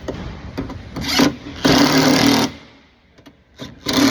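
Cordless power tool running in short bursts, driving the two 10 mm nuts that hold the door lock actuator bracket; the longest run lasts under a second, with two brief spurts near the end as the nuts snug down.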